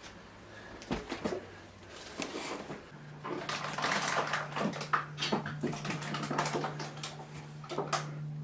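Irregular crunching, scraping and clattering of debris as someone moves through a littered room, busier from about three seconds in. A low steady hum comes in at the same point.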